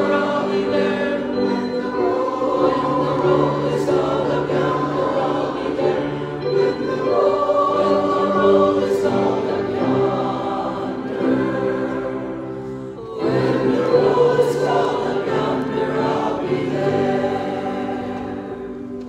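A church congregation singing a hymn together, long held notes in phrases, with a brief break about thirteen seconds in and the singing fading near the end.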